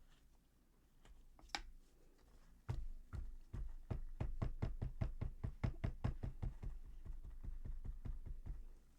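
Rapid run of knocks, about four a second, starting near three seconds in: a mold filled with wet plaster being tapped on the table to settle the plaster into its crevices.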